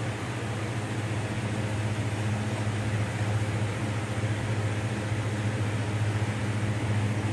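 Steady low hum with an even rush of fan-like noise, unchanging throughout.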